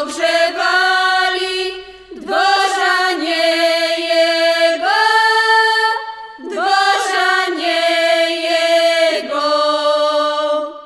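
Closing phrases of a Polish highland folk Christmas carol (pastorałka) sung and played by a regional folk ensemble: long held notes with a slide into each of three phrases. The final note dies away at the very end.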